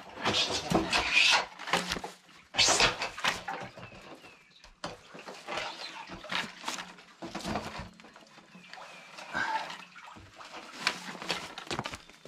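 Rusty steel well drop pipe being pulled by hand out of a cistern, scraping and knocking against the concrete edge and the ground in irregular bursts. The loudest knocks come in the first three seconds.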